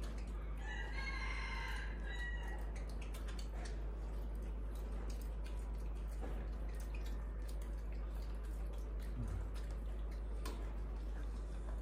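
Small scattered clicks and taps of a spoon and fingers against a stainless steel pan during feeding, over a steady low hum. About a second in there is a brief high-pitched squeak lasting about a second.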